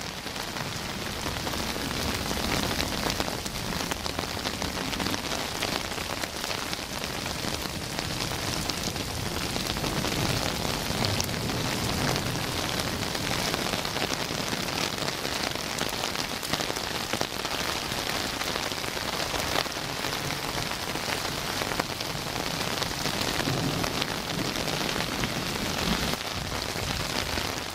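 Heavy rain falling steadily on a paved street, sidewalk and grass.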